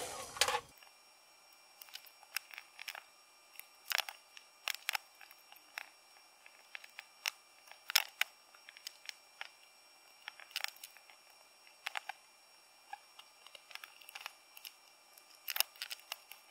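A heat gun's blowing cuts off at the start, then a metal pry tool scrapes and clicks against a thin, heat-softened glued metal faceplate and the plastic bezel of a calculator case in scattered short ticks and scrapes.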